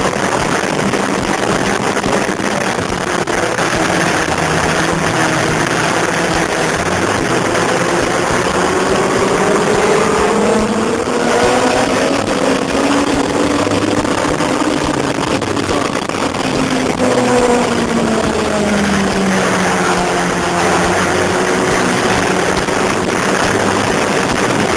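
Sport motorcycle engine pulling hard at speed, its pitch rising and falling with throttle and gear changes, under a constant loud rush of wind over the microphone.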